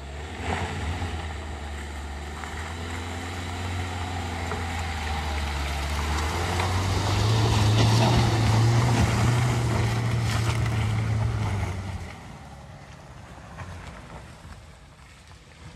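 Dacia Duster 4x4 with its 1.5 diesel engine pulling uphill through mud, the engine note growing louder and higher as it comes close, loudest about eight seconds in. It falls away sharply about twelve seconds in.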